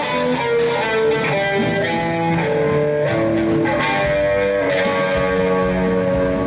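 Background music carried by a guitar melody, its notes held and changing about every half second.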